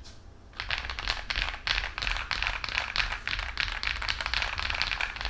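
Fast, continuous typing on a CIY GAS67 mechanical keyboard fitted with PBT keycaps, starting about half a second in.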